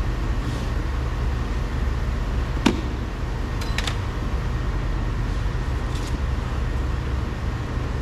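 Steady low hum and rush of workshop background noise, with one sharp click about two and a half seconds in and a few faint ticks a little later as the car's door trim panel and its screws are handled.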